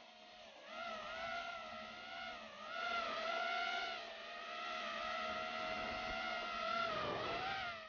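A vehicle engine revving hard: a high whining note that rises and falls over and over, then dips sharply at the very end.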